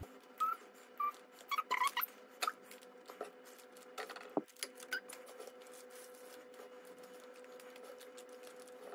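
Chopped chocolate pieces being scattered by hand onto muffin batter in paper liners: faint, irregular light ticks and paper rustles, with a few short squeaks in the first couple of seconds, over a steady faint hum.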